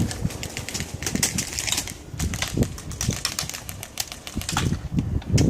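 Airsoft guns firing: rapid, irregular sharp clicks and snaps, with low thumps underneath.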